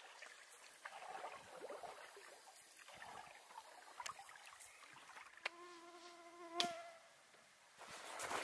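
A flying insect buzzing close by for just over a second, a steady hum a little past halfway, over faint quiet lakeside ambience with a few soft ticks.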